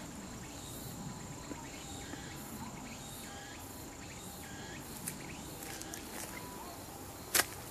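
Crickets and other insects trilling steadily in woodland, with short chirps repeating every half second or so. A single sharp snap near the end.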